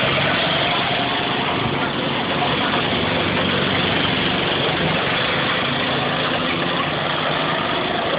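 Go-kart engines running steadily as several karts drive around the track, giving a continuous engine drone.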